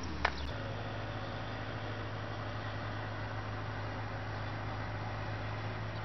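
Steady background noise of distant road traffic with a low hum, and a single sharp click near the start.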